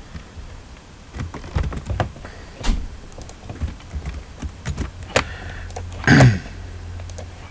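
Scattered clicks and taps of a computer keyboard and mouse during code editing. About six seconds in comes one louder, short sound that falls steeply in pitch.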